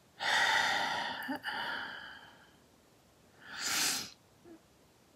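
A woman's long, audible sigh lasting about two seconds, followed about a second later by a shorter breath.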